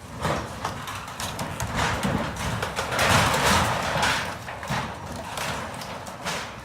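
A flood-undermined house breaking apart into a swollen river: a run of sharp cracks and knocks, with a louder crashing rush about three seconds in.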